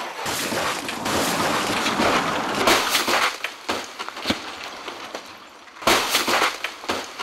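Car crash: a rush of sprayed gravel and debris with many sharp knocks and breaking sounds. It dies down about five seconds in, then starts again abruptly.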